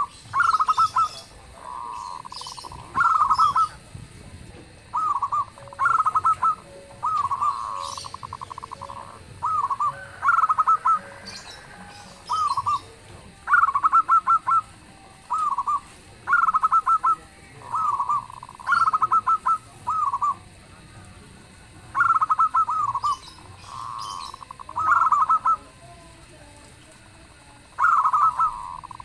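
Zebra dove (perkutut) cooing: a series of short trilled coo phrases, repeated about every one to two seconds.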